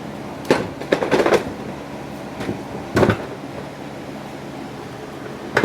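Several sharp knocks and clacks of hard parts being handled and worked apart, over a steady low hum: a single knock, a quick cluster about a second in, a louder one around three seconds in, and another near the end.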